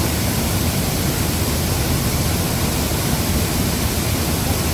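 Large waterfall in full rainy-season flow, water rushing and pouring over big rocks: a loud, steady rush.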